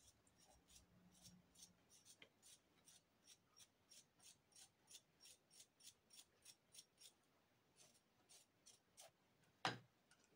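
Wire brush scraped back and forth in short, quick, even strokes, about three a second, cleaning a small hand tool. The strokes slow and thin out after about seven seconds, and a single louder knock comes near the end as the brush is set down on the wooden bench.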